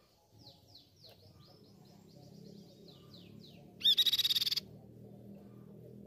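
Crescent-chested babbler singing: a run of quick, high, down-slurred whistled notes, then about four seconds in a loud, fast, rattling trill lasting under a second.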